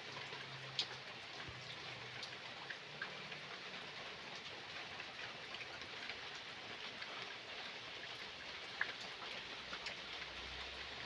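Steady rain falling, an even patter with scattered louder drops ticking now and then.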